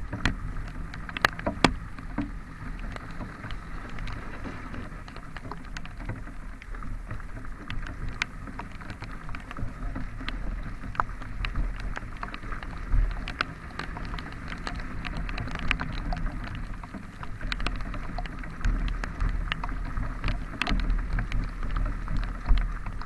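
Motorcycle ridden in the rain over a rough, broken road: a steady low rumble of engine and wind, with scattered sharp ticks and knocks throughout.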